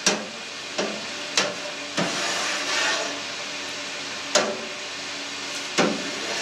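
A plastic slotted spoon gently stirring cut cheese curd in whey in a stainless-steel pan: wet swishing, with about six sharp knocks of the spoon against the pan, over a faint steady hum. This is the curd being stirred while it is slowly heated to 36–37 °C to firm up.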